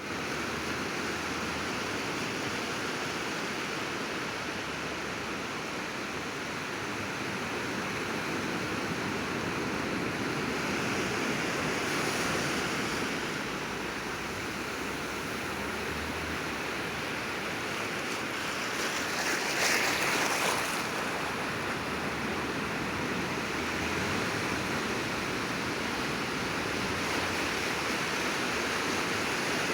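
Sea waves washing onto the shore in a steady wash that slowly swells and ebbs, with one louder wave breaking about two-thirds of the way through.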